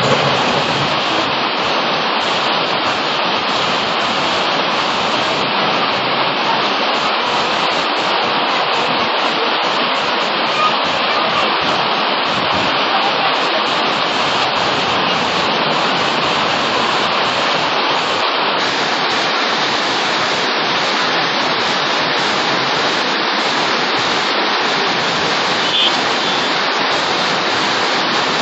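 Heavy rain falling: a loud, steady, even hiss with no letup.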